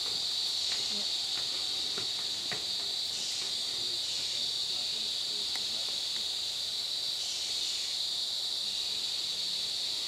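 Steady, high-pitched chorus of rainforest insects, an unbroken shrill drone that holds at an even level.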